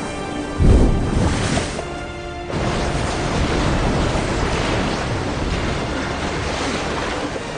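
Film score music over a dense rush of surging water, with a heavy low boom about half a second in.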